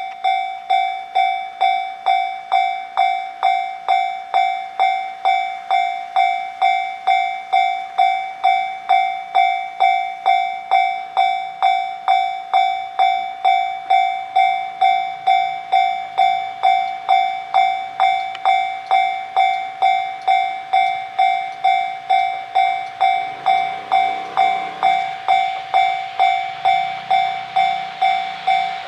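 Japanese level-crossing alarm bell ringing its steady, evenly repeated clang, a little under two strikes a second. In the last several seconds the rumble of an approaching train builds up underneath it.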